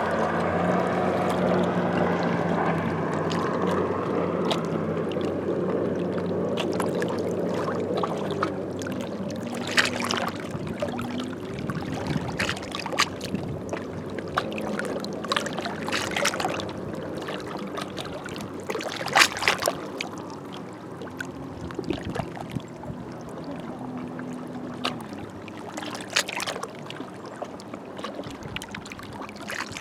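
A boat's engine running and gradually fading away, its pitch sliding down, while small waves lap and splash against the shore in separate strikes every few seconds.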